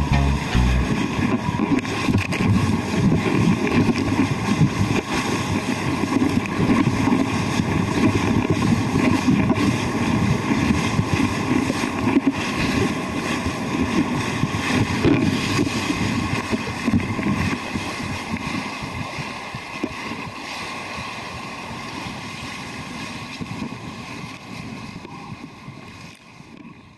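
Wind buffeting an action camera's microphone, with water rushing and splashing under a kiteboard as it skims over choppy sea. The noise fades away over the last several seconds.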